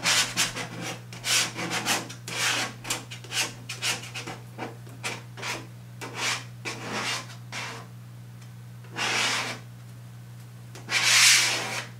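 A card rubbed across contact paper stuck to window glass, scraping out air bubbles: many quick, short strokes, then two slower, longer strokes near the end, the last one the loudest.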